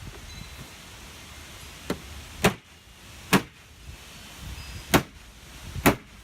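A rubber mallet strikes a plastic spa step tread to seat it onto the side walls. There are five sharp hits spaced roughly a second apart, and the first is lighter than the rest.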